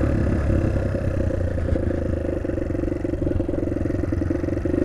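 Small-capacity motorbike engine running steadily while riding, with a fast even firing pulse; it eases slightly around the middle and picks up again near the end.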